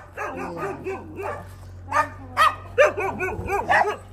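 Several dogs barking at once, overlapping at different pitches, as they chase off a passer-by; the barks grow louder and sharper from about halfway.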